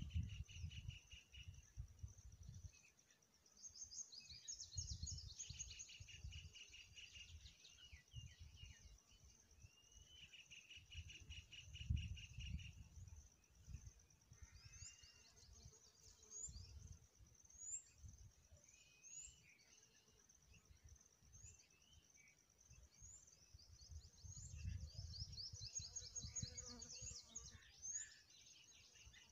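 Faint high-pitched trills and short rising chirps, of small wild birds calling, over an uneven low rumble. The trills come in several spells of a second or two. From about halfway on, a short chirp repeats every second or so.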